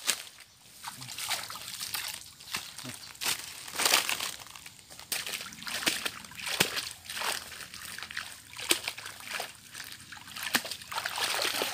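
Shallow pond water sloshing and splashing in short, irregular bursts as a person scoops it by hand to wash their feet.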